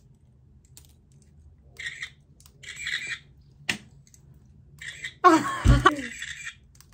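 Novelty mini camera keychain playing its electronic shutter sound several times as its button is pressed, short hissy clicks, the last and loudest one firing with its flash, with a short laugh over it near the end.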